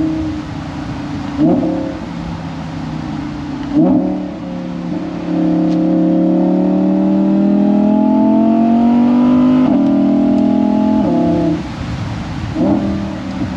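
Audi R8 V10 Spyder's V10 engine through its valved ASG exhaust. Three quick throttle blips come first. Then a long pull in gear rises in pitch, an upshift drops it about two-thirds of the way through, a shorter pull follows, the throttle lifts, and two more quick blips come near the end.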